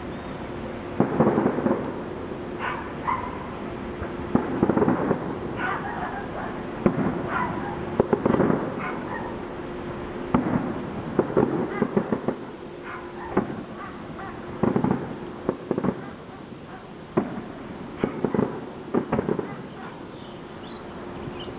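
Fireworks going off: a string of bangs and crackling bursts, roughly one every one to two seconds, over a steady low hum.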